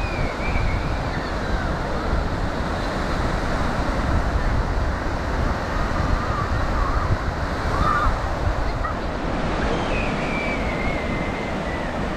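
Steady surf of ocean waves washing onto a sandy beach, a continuous rushing noise without pauses.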